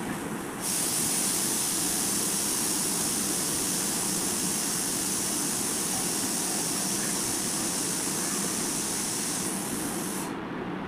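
A steady high hiss that starts abruptly about a second in and cuts off abruptly near the end, over a constant low background noise.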